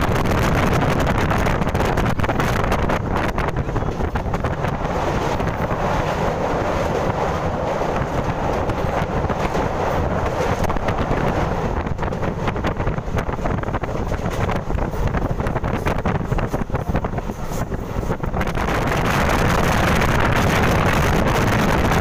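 Passenger express train running at speed over a river bridge, a steady loud rumble with a dense clatter of wheels on the rails and wind buffeting the microphone.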